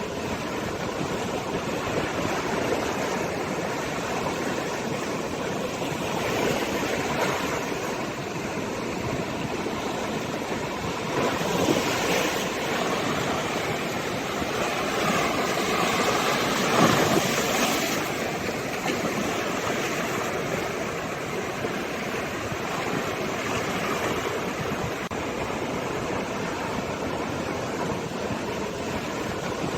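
Sea waves breaking and washing onto the shore in a steady rushing wash that swells and falls, with bigger waves about 12 s in and again about 15 to 18 s in, the loudest near 17 s.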